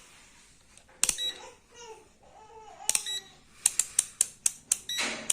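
Multimeter's rotary selector dial being turned, clicking through its detents: a single sharp click about a second in, another near three seconds, then a quick run of about eight clicks, roughly four a second.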